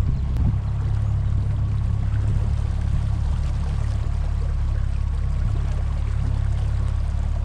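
Outboard motor of a small inflatable boat running steadily at low cruising speed, a constant low drone, with water washing along the boat.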